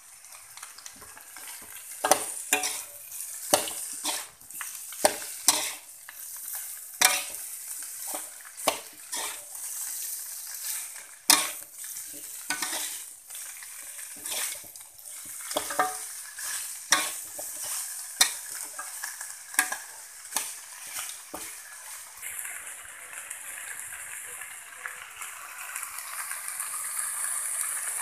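A spatula scraping and knocking against a wok as chunks of meat are stirred into spice paste frying in oil, over a continuous sizzle. The knocks stop about three quarters of the way through, leaving a steadier sizzle.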